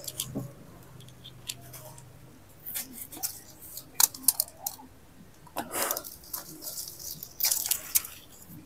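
Leaves rustling and stems snapping in short, scattered crackling bursts as fruit is picked by hand from a bush.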